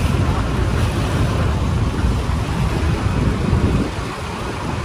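Wind buffeting the microphone on an open boat deck, an uneven low rumble over the wash of the sea.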